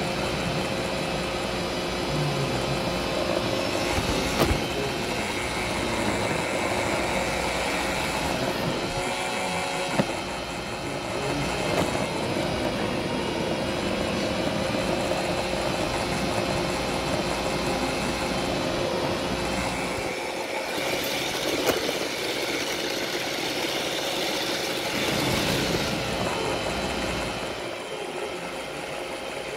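Roomba robot vacuum running: a steady whir of its motor and brushes, with a few sharp knocks along the way.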